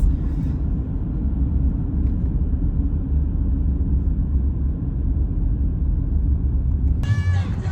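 Steady low rumble of a vehicle in motion, heard as a deep road-and-engine drone. About seven seconds in, music cuts in over it.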